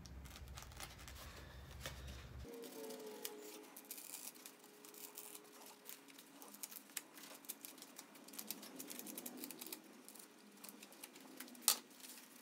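Knife blade cutting through closed-cell Kaizen foam: faint scratchy crackling made of many small ticks, with one sharper click near the end.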